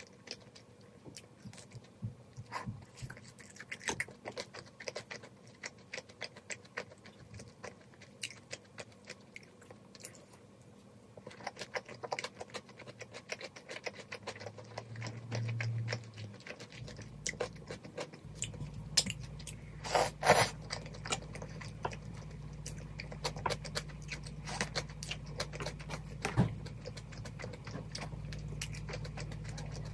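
Close-up chewing and biting of pan-fried dumplings and jjajang cup-ramyeon noodles, with many small clicks. A steady low hum comes in about halfway, and one louder knock sounds around twenty seconds in.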